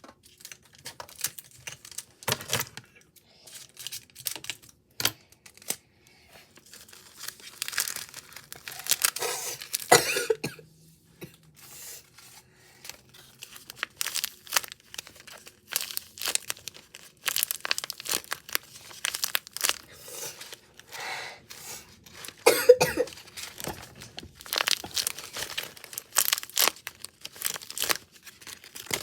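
Rustling, crinkling and short clicks from a window blind being wiped and handled, with a person coughing now and then. The loudest coughs come about ten seconds in and again about two-thirds of the way through.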